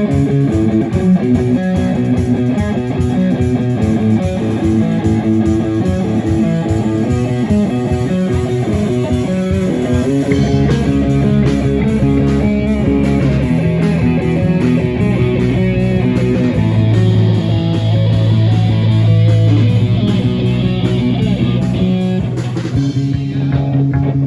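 Live band playing the instrumental opening of a pop-metal song: electric guitar with bass guitar, drums and keyboard. About ten seconds in, the busy strummed rhythm gives way to longer held chords over a sustained low bass note.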